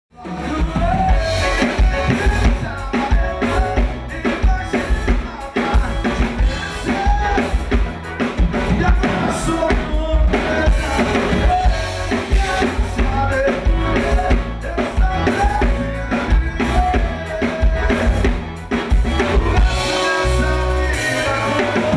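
Band music with a steady drum-kit beat and a bass line.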